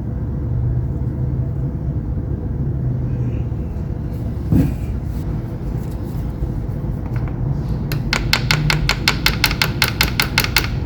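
A steady low rumble throughout, a single knock about four and a half seconds in, then near the end a rapid, even run of sharp clicks, about seven a second, for nearly three seconds.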